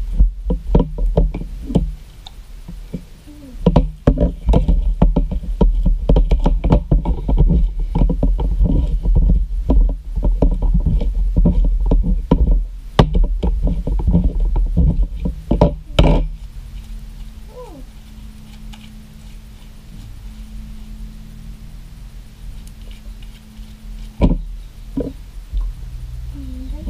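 Slime being mixed in a plastic bowl by hand and with a spoon: rapid wet clicking and squelching with spoon knocks against the bowl. This stops about sixteen seconds in. What follows is quieter, with a low steady hum and a couple of knocks near the end.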